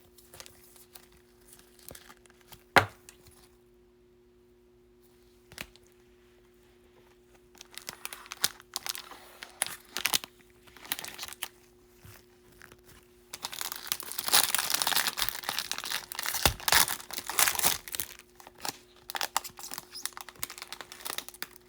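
A foil trading-card pack wrapper is crinkled and torn open. A few sharp taps come first, then the crinkling builds, loudest about two-thirds of the way through. A faint steady hum lies underneath.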